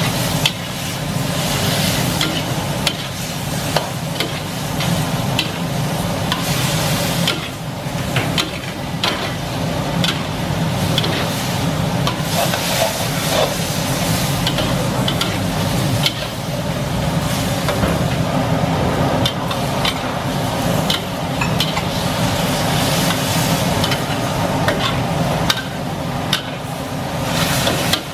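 Chicken and onion sizzling in a steel wok while a metal spatula stirs and scrapes them, with frequent sharp clicks of the spatula against the wok. A steady low hum runs underneath.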